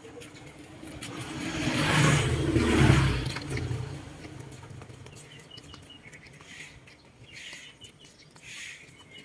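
A motor vehicle passes close by, its engine and tyre noise swelling and fading over about two seconds. Later, a duckling gives a few faint, high peeps.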